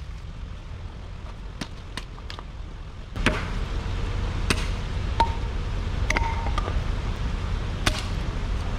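Scattered sharp cracks and knocks of branches being handled and broken for firewood. A steady low rumble sets in about three seconds in.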